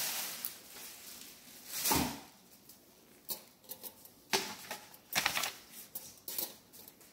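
Kitchen items being handled on a countertop: scattered light clicks and knocks, with one heavier thump about two seconds in.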